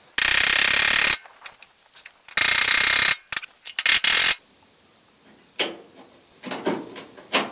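Two loud, harsh rasping noises, about a second and under a second long, then a quick run of clicks and a few sharp metal clicks from hand tools worked on the car's grille.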